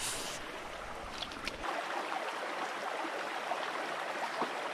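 Shallow woodland stream running over stones: a steady rush of flowing water.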